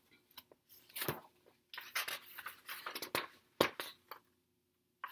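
Pages of a large picture book being turned: paper rustling and sliding, with a few sharp snaps of the page near the middle.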